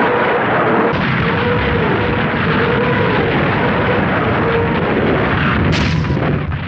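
Soviet Katyusha rocket launcher firing a salvo: a continuous dense roar of rockets launching one after another, with a faint wavering howl running through it.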